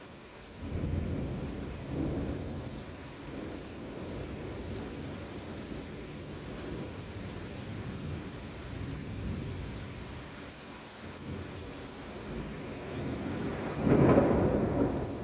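Thunder rumbling and rolling over steady rain, swelling a couple of times early on and breaking into its loudest peal about a second before the end.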